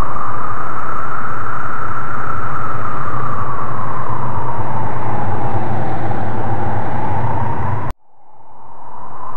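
Loud eerie ambient sound effect: a rushing, wind-like noise whose pitch slowly rises and falls over a low rumble. It cuts off abruptly near the end and starts to fade back in, as a looped background clip restarting.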